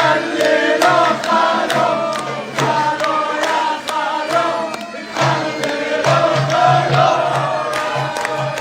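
Arabic wedding zaffa music: several voices singing over a steady pounding drumbeat with sharp percussion strikes.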